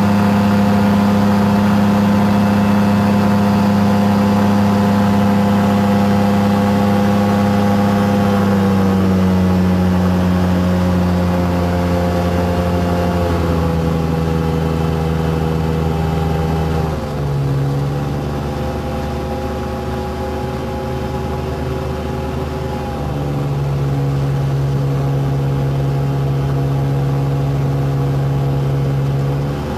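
Caprice 21 ultralight's engine and propeller droning in flight, heard from the cockpit. The pitch steps down in stages about nine, thirteen and seventeen seconds in as power is eased back, then rises again about twenty-three seconds in.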